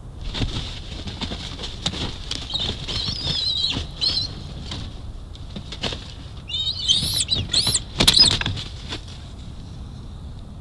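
Bald eagles flapping and shifting about a stick nest, their wingbeats mixing with rustling and knocks of branches. A high, thin, wavering eagle chitter comes about three seconds in, and a few high rising-and-falling piping calls come around seven to eight seconds in, the loudest part together with a burst of flapping.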